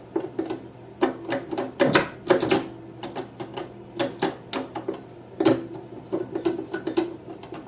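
Farmall tractor gear shift lever being worked back and forth, giving a run of irregular metal clicks and clunks. The shifter is newly fitted with bushings and a pin kit, so it has far less slop than a worn one.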